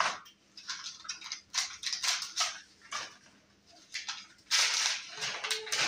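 Thin black plastic seedling cell packs being pulled apart and set into a plastic seed tray: crinkling and clattering in short bursts, loudest and longest in the last second and a half.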